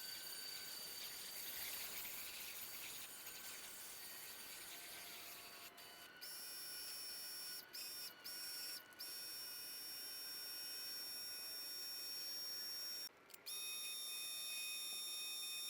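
Faint, steady high-pitched whine made of several thin tones, cut by a few brief sudden dropouts after which the tones shift in pitch.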